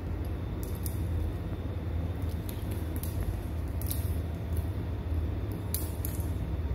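Light, scattered ticks and scuffs of a kitten's paws and a string toy striking a tiled floor as the kitten pounces on the string, over a steady low hum.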